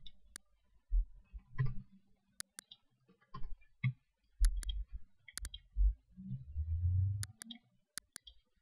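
Computer mouse buttons clicking a dozen or so times, often in quick pairs, with low dull thumps and rumbles in between.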